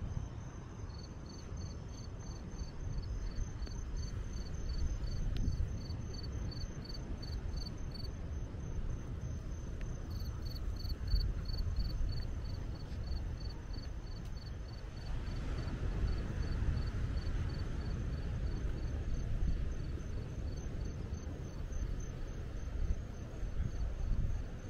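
Crickets chirping in a steady rhythm, a few chirps a second, with a pause about eight seconds in, over a continuous high insect trill. A steady low rumble runs underneath.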